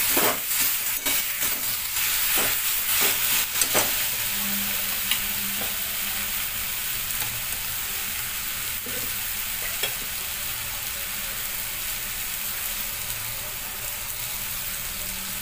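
A metal spatula scrapes and stirs mashed eggplant bharta in a metal kadhai, in repeated strokes for about the first four seconds. After that the mixture sizzles steadily in hot oil.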